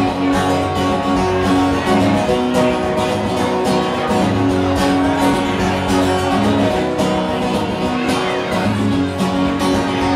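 Two acoustic guitars strummed together in a steady rhythm, an instrumental passage between sung lines.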